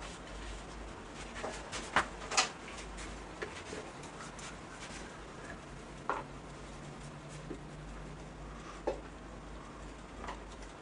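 Scattered small clicks and knocks from handling acrylic painting gear (brushes, a paint bottle) at an easel: a sharp pair about two seconds in, then single taps every few seconds.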